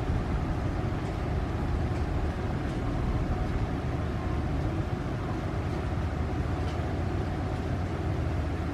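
Steady low rumble of an inland motor cargo ship's diesel engine running under way, with a faint steady hum above it.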